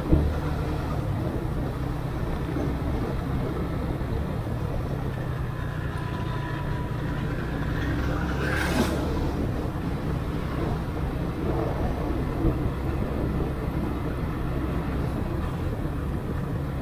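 Motorcycle engine running steadily while riding, with road and wind noise. A brief louder rush of noise comes about eight and a half seconds in.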